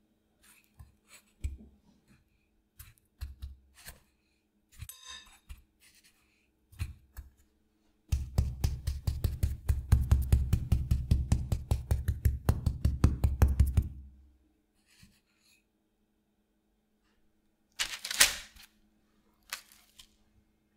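Back of a metal spoon patting breadcrumbs onto a breaded pork cutlet in a ceramic plate: a quick, even run of dull taps lasting about six seconds in the middle. Before it, scattered light knocks of a fork turning the cutlet in the crumbs; near the end a short crackle.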